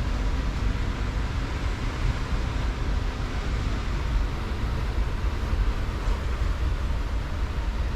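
Steady noise of heavy rain pouring down on and around a greenhouse, with a constant low rumble underneath.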